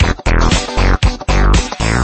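Upbeat electronic background music with a driving beat, punchy bass hits and synthesizer sweeps.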